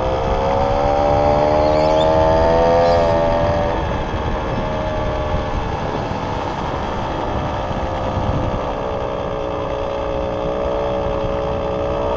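A vehicle's motor whining while riding along, rising in pitch over the first three seconds and then holding steady, over a constant rumble of wind and road noise.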